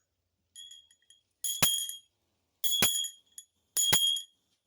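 A small metal bell is struck three times, about a second apart. Each stroke rings with a clear high tone and fades within about half a second, and two light tinkles come before the first stroke.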